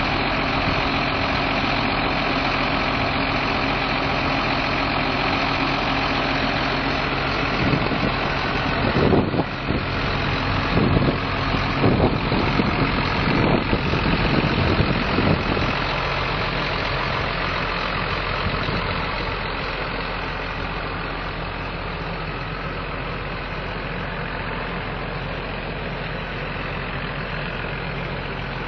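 John Deere 7820 tractor's six-cylinder diesel engine idling steadily, with some irregular bumps over it between about 8 and 16 seconds in. It is a little quieter toward the end.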